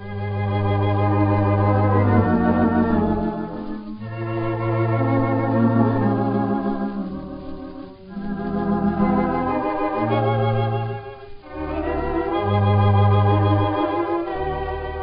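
Theatre pipe organ playing sustained chords in phrases, with a wavering tremulant, on an early record whose sound is dull with no high treble.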